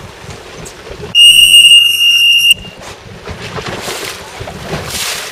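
A single loud horn blast of about a second and a half, one steady high tone that cuts off sharply, over wind buffeting the microphone and water noise: a race signal for a fleet of sailing dinghies lined up at the start.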